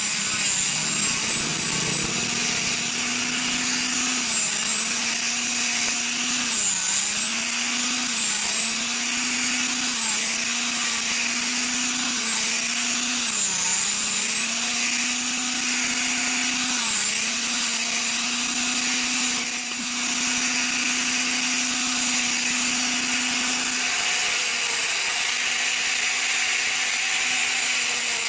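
Handheld angle grinder fitted with a sanding disc, running steadily as it sands a wooden block. Its motor whine dips in pitch again and again, mostly between about 4 and 17 seconds in, as the disc is pressed into the wood and slows under the load.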